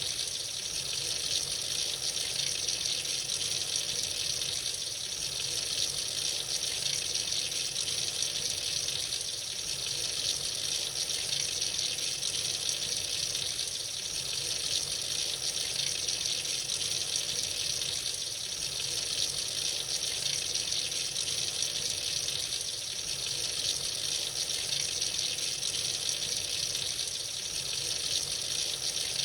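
Tap running freely into a sink, a steady stream of water with a constant hiss and small slow swells in level.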